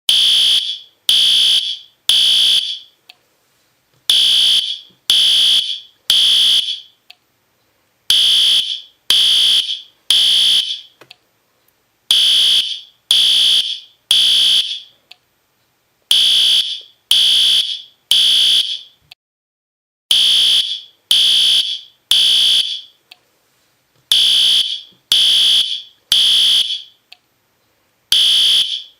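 System Sensor P2R fire alarm horn sounding loudly in the temporal-3 evacuation pattern: three short, high-pitched blasts, a pause, then three again, repeating about every four seconds.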